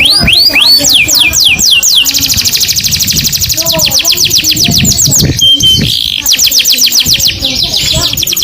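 Canary singing: fast trills of repeated falling whistled notes, broken near the start by a few slower, wider sweeps, with a short steady whistle just past the middle.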